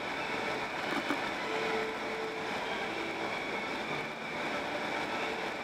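Steady road and wind noise of a car driving at road speed, heard from inside the car, with a brief tick about a second in.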